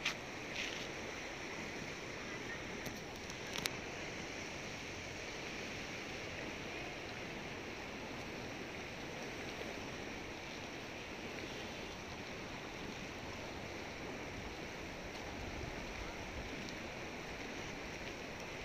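Floodwater of the swollen Manjira River rushing steadily. A couple of sharp clicks come in the first four seconds.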